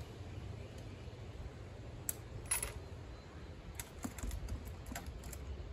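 Sparse light metallic clicks and a ringing clink as small valvetrain parts and tools are handled at an open cylinder head, over a low steady rumble.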